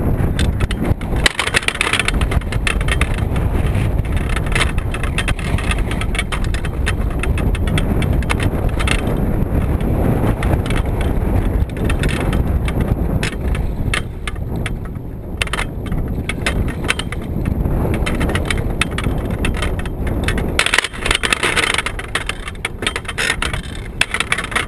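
Strong gusting wind buffeting the action camera's microphone: a loud, continuous rumble with crackling, easing somewhat in the middle and picking up again near the end.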